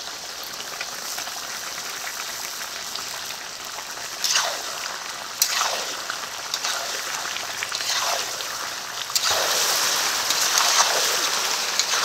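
Chicken curry sizzling and bubbling in a hot iron kadai as it is stirred with a wooden spatula, the meat releasing its juices. Fried potatoes go in and the sizzle surges in several bursts as they are turned in, and it stays louder after about nine seconds.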